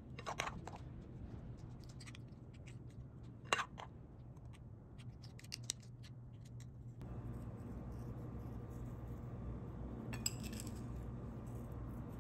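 Kitchen utensils clicking, clinking and scraping in short scattered bursts. A steady low hum comes on about seven seconds in.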